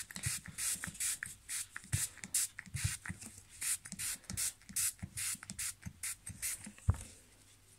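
Small plastic trigger spray bottle squirting water onto a paper tissue in quick short hisses, about three a second, to soak it. A few soft handling bumps, the loudest about seven seconds in.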